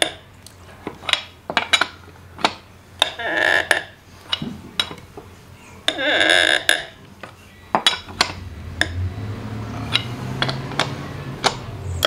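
Steel lug wrench working the lug nuts on a Jeep's alloy wheel: repeated sharp metallic clinks as the wrench is seated and turned, with two longer squeaks about three and six seconds in as nuts are tightened down hard.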